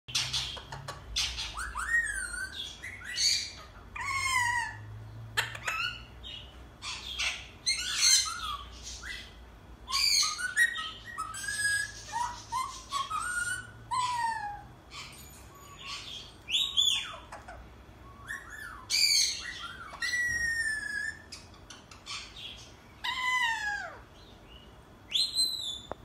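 Alexandrine parakeet calling in a long, irregular string of whistles, chirps and squawks, many of them whistled notes that slide downward, with short pauses between.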